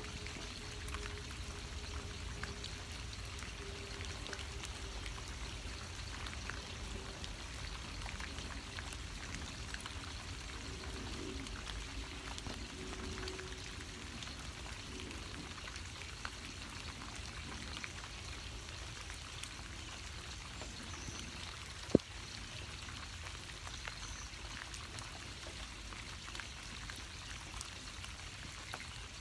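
Steady rain falling, a continuous patter of drops with many small ticks. One sharp tap about two-thirds of the way through stands out as the loudest moment. A faint held tone dies away during the first half.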